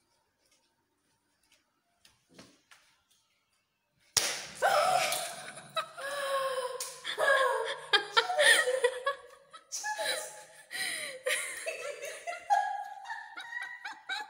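Near silence for about four seconds, then a sudden sharp smack. After it, women laugh and shriek loudly, their voices high and sliding, and keep going.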